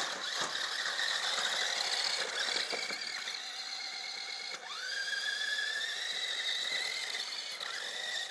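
Small electric RC car's motor and gears whining at a high pitch as it drives over snow. About halfway through the whine drops briefly, then rises again in pitch as the car speeds back up.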